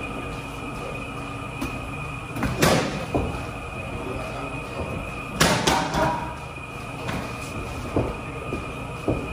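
Boxing gloves thudding as punches land during sparring: one loud hit about two and a half seconds in, a quick cluster of several around the middle, and lighter hits near the end, over a steady background hum.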